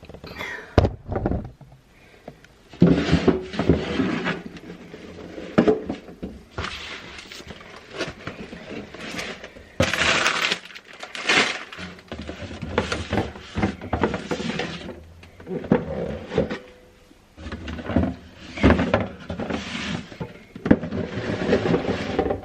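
Irregular clattering, knocking and rustling of kitchen containers and packaging as they are handled, a run of short noisy bursts with sharp knocks between them.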